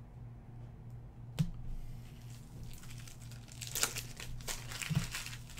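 Foil wrappers of baseball card packs crinkling and rustling as they are handled, in a run of crackles from a little past halfway. A single sharp tap about a second and a half in.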